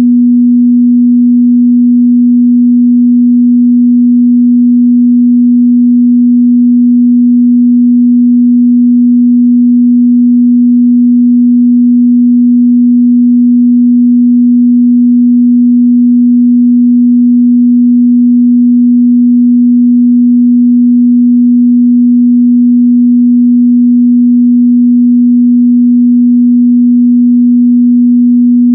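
A steady 243 Hz sine-wave test tone: one pure, unchanging low hum, held at constant loudness.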